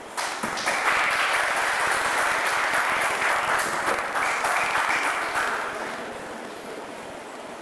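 Audience clapping, which starts abruptly just after the opening and dies away about six seconds in.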